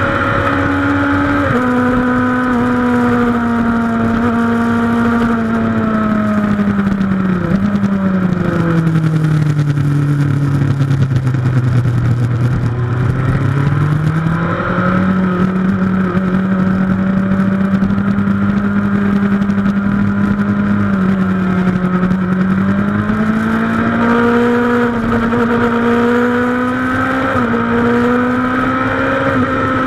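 Suzuki GSX-R1000 K2 inline-four sport bike engine heard from the bike at track speed, with wind rush. Its pitch sinks as the bike slows for a corner, about 7 to 13 seconds in, then rises again as it accelerates out, with small steps at the gear changes.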